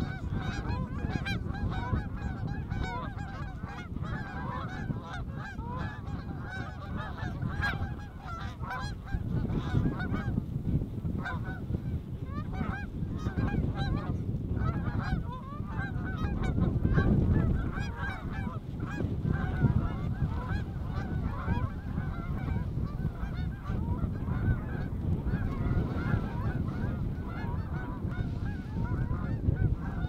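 A large flock of Canada geese honking and calling continuously, many overlapping voices, as the birds circle low and set down into the decoys. Wind rumbles on the microphone underneath.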